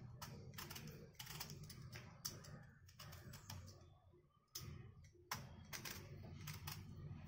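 Metal peeler scraping strips of skin off a pointed gourd (parwal): faint, irregular scratchy strokes, with a short pause about four seconds in.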